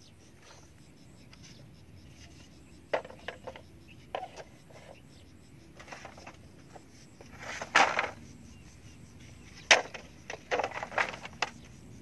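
Hollow bamboo poles knocking and clattering against one another as they are laid side by side for a floor on a bamboo frame. The knocks come irregularly in small clusters, with a longer clatter past the middle and a single sharp knock soon after.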